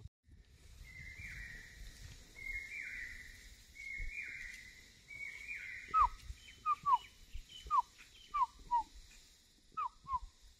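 Wild animal alarm calls. A call is repeated four times about a second apart, then many short falling calls follow in an uneven run from about halfway through. The guide takes them for animals sounding the alarm on sighting a tiger.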